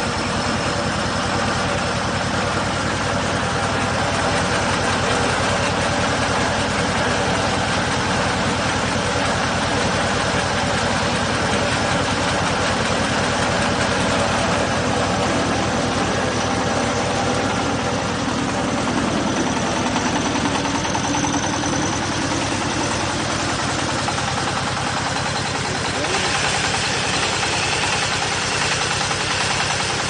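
Diesel engine of a round baler-wrapper running steadily under load, with the baler's feed conveyor and rollers running. A hissier layer joins about four seconds from the end.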